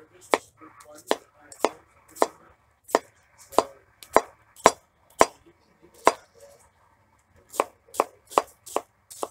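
Cleaver chopping red onion on a plastic cutting board: a run of sharp knocks, about two a second, with a short pause a little past the middle.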